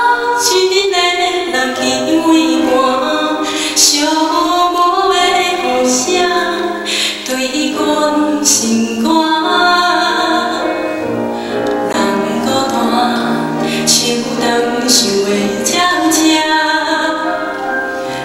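A woman singing a slow ballad into a microphone, with grand piano accompaniment, amplified over a hall's sound system.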